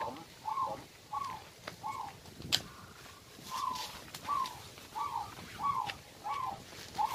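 A bird calling over and over: about ten short notes that rise and fall, roughly one every two-thirds of a second, with a pause near the middle. A sharp click about two and a half seconds in.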